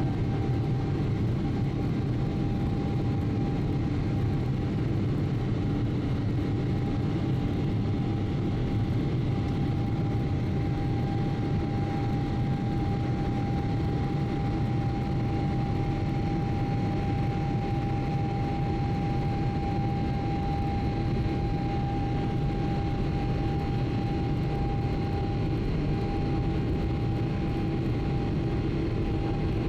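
Boeing 777-300ER cabin noise heard from a seat inside: a steady rumble of engines and airflow with a steady whine from the jet engines.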